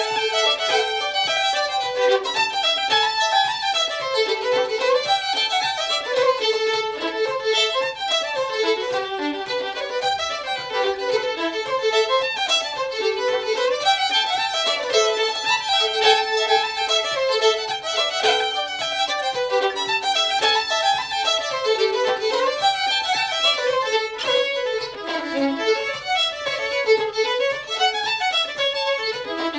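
Fiddle playing a Cape Breton tune, a steady stream of quick notes that run up and down.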